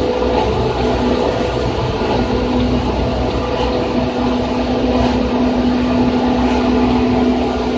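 Running sound inside a Seibu 2000 series electric train's motor car, MoHa 2375, moving steadily: a constant rolling rumble and wheel noise with a steady low hum that grows stronger about halfway through.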